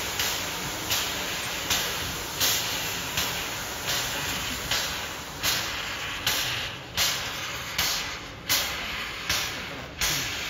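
Steam locomotive working slowly, its exhaust chuffing in even beats about every three quarters of a second, each a sharp hiss of steam that fades before the next.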